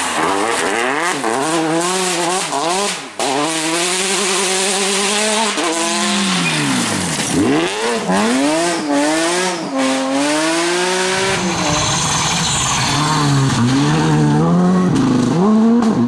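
Rally cars on a loose gravel stage, one after another, driven flat out: engines rev up and drop again and again through gear changes and lifts, over the hiss of tyres and thrown gravel.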